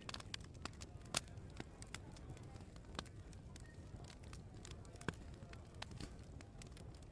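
Open wood fire crackling, with irregular sharp pops and snaps; the loudest pops come about a second in, at about three seconds and at about five seconds.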